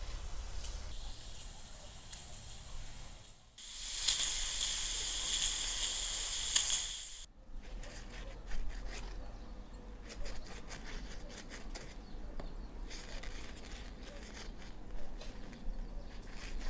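A loud, steady, high hiss for about three and a half seconds that cuts off abruptly. After it come faint, soft dabs and small clicks of a silicone pastry brush spreading milk over raw flatbread dough.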